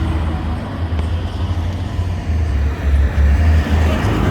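Car engine and road noise, a steady low rumble that grows a little louder near the end.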